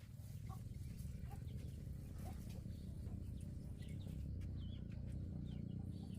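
Chickens clucking, short scattered calls over a steady low rumble.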